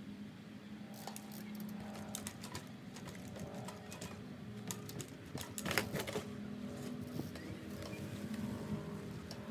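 Background music with a steady tone, over which an Ibis Mojo 3 mountain bike makes a run of sharp clicks. A louder knock comes a little before six seconds in, as the wheels meet a plywood-topped box.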